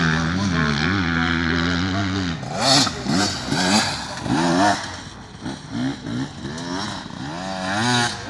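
Enduro motorcycle engine revving hard and easing off again and again, its pitch rising and falling several times as the bike rides the dirt course.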